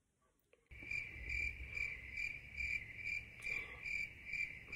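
Cricket chirping sound effect: a high, steady chirp pulsing about twice a second over a faint low hum, starting after a brief silence.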